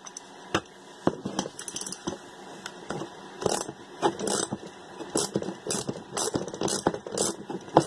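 Irregular metallic clinks and rattles as a 14 mm socket is worked on the impeller nut of a hydronic circulator pump being taken apart to replace its leaking mechanical seal.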